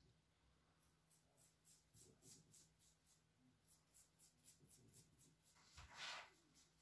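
Faint, quick strokes of a tint brush working an oil hair mask into hair at the scalp, about three or four a second, followed near the end by one louder rustle of hair being parted by hand.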